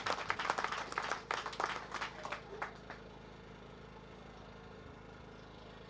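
Congregation clapping in scattered, uneven claps that die away about three seconds in, leaving a quiet room with a faint steady hum.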